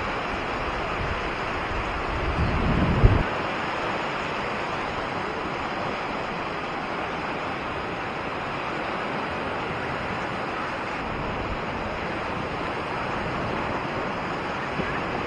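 Sea surf on a sandy beach: small waves breaking and washing up over the sand in a steady hiss. About two to three seconds in, a brief low rumble swells and then cuts off sharply.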